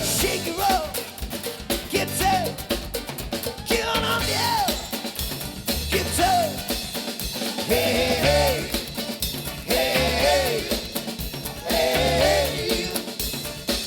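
Live party band playing: a drum kit keeping a steady beat with snare and bass drum, under a lead line whose notes bend up and down.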